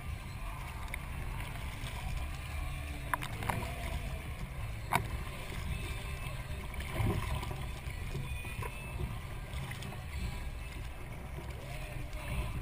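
Kayak paddling: a double-bladed paddle dipping and splashing on alternate sides over a steady low rumble of water and air, with a few sharp clicks near the middle.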